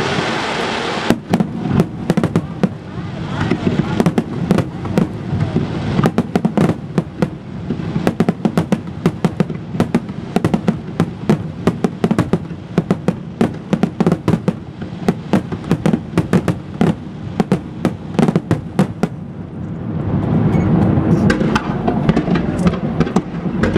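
Aerial firework shells bursting in a rapid barrage, a dense string of sharp bangs and cracks following close on one another. About twenty seconds in the bangs thin out to a few.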